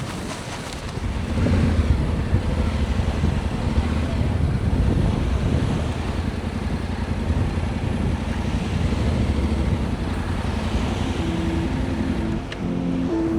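Strong wind buffeting the microphone, a loud, gusting rumble that swells about a second in. Music fades in near the end.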